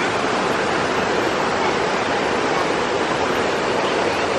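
Shallow rocky stream running fast over stones and small rapids: a steady, even rush of water.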